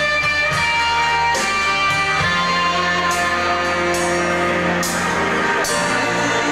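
Live rock-and-roll band playing: electric guitars over bass and drums, with held notes and cymbal hits several times in the second half.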